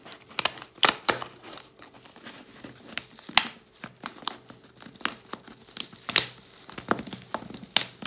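Thin plastic PET bottle crinkling and crackling in the hands as one cut bottle section is pushed and twisted over the other, in irregular sharp clicks.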